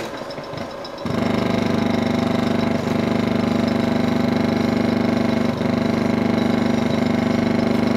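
16mm film projector running: a loud, steady buzzing drone with a fast, even flutter, starting abruptly about a second in.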